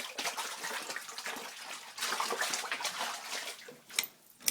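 Water splashing and running in a flooded basement, with a couple of sharp clicks near the end.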